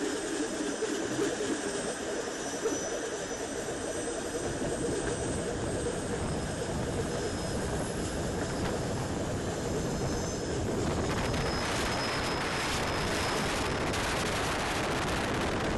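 Rhaetian Railway train running on the Bernina line, heard from an open carriage window: a steady rumble of the running train mixed with rushing air. The rushing grows louder and brighter about eleven seconds in.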